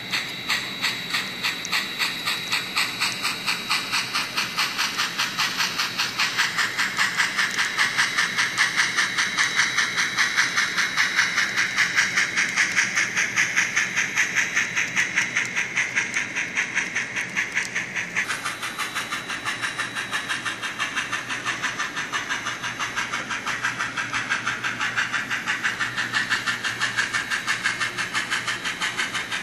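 Simulated steam exhaust from a Soundtraxx Tsunami sound decoder in a model 2-6-6-0 articulated steam locomotive: a steady run of quick, even chuffs with hiss as the engine pulls its train. The tone of the chuffing shifts a little past halfway.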